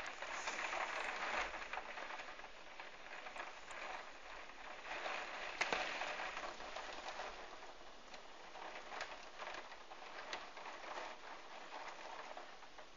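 Heavy storm rain pattering, swelling in waves at the start and again about five seconds in, with one sharp tick just before six seconds.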